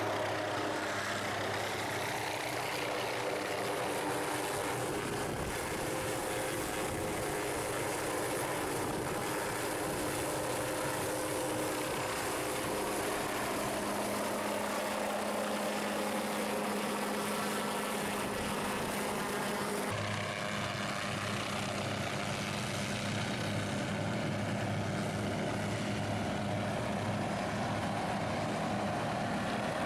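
Aircraft engines running steadily: an OH-6A Loach helicopter's turbine and rotor as it flies low overhead, mixed with the DC-3's propeller engines. The tone changes abruptly about twenty seconds in.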